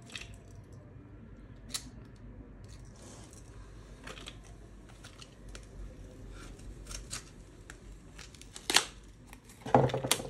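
SD card's plastic retail packaging being cut and torn open by hand: scattered snips, clicks and crinkles of plastic, with a couple of louder cracks near the end.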